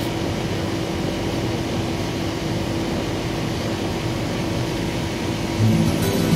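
Outdoor air-conditioner condenser unit running: a steady whir of the fan with a low, even hum. Music comes in near the end.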